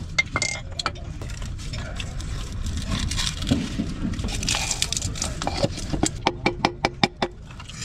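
A quick run of sharp metallic taps, about five a second, from about two-thirds of the way in, each with a short ring. They come over a steady low workshop rumble.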